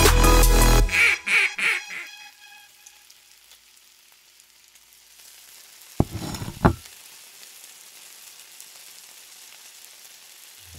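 An electronic dance track ends in the first second and fades out. Then comes a faint steady frying sizzle, with two short duck quacks about six seconds in.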